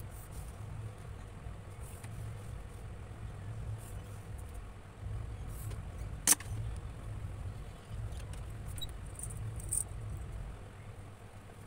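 Steady low rumble with a single sharp click about halfway through and a few lighter ticks a little later, from rulers and pencils being handled on a tabletop.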